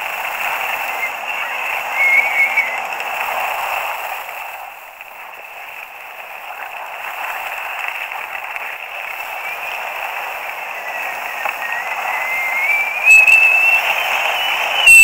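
Wind rushing over a helmet-mounted action camera's microphone while skiing downhill, mixed with the hiss of skis on snow. The rush eases briefly about five seconds in. A thin, wavering wind whistle comes in early on, and again from about two thirds of the way through, rising in pitch.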